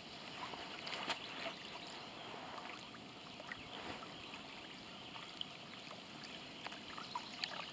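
Small waves lapping and trickling at the water's edge: a quiet, steady wash with scattered light ticks and splashes.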